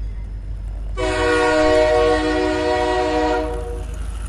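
Train horn sounding one long, steady blast of several tones together for about two and a half seconds, starting about a second in, over a low rumble.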